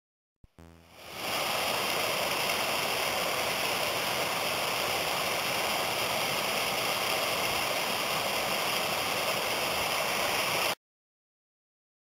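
Small mountain stream running over rocks, a steady rush of water. It fades in after a brief click about half a second in and cuts off suddenly near the end.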